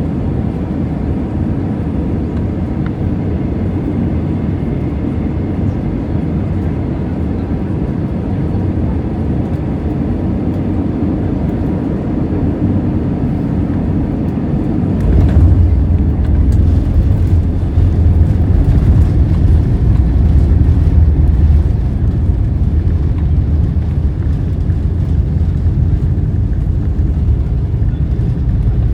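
Airbus A320 cabin noise heard through the window seat: a steady rush and engine hum on final approach, then about halfway through a sudden thud of touchdown followed by a much louder low rumble from wheels on the runway and the engines as the aircraft decelerates, easing off somewhat toward the end.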